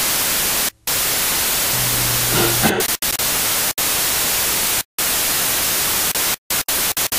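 Television static: a steady rush of white-noise hiss from a snowy analogue picture, cutting out abruptly in brief gaps about half a dozen times.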